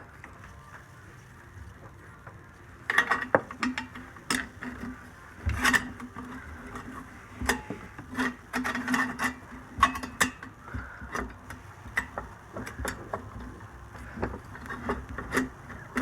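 A 5/8 wrench working the V-band clamp on a Ford 7.3 Powerstroke's downpipe: irregular metal clicks, knocks and clinks starting about three seconds in, some with a short ring.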